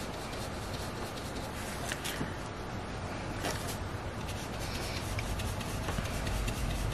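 Blending brush swirled and dabbed over cardstock, its bristles rubbing on the paper in a soft, steady scratchy brushing with a few sharper strokes, as ink is worked into the card.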